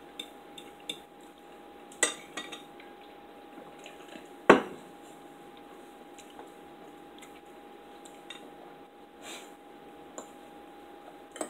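Forks and a knife clinking and scraping on dinner plates while eating: scattered sharp clinks, the loudest about two seconds in and again about four and a half seconds in.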